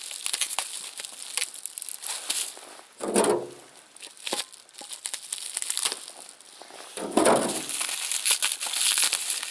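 Plastic packing film and tape crinkling and crackling as they are peeled and torn off a thermos by hand, with two louder swishes about three and seven seconds in.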